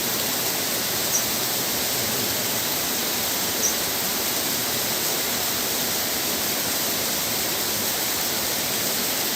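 Steady rushing of flowing water from a stream or waterfall, an even hiss with no breaks. Two faint, brief high chirps sound about a second in and again a couple of seconds later.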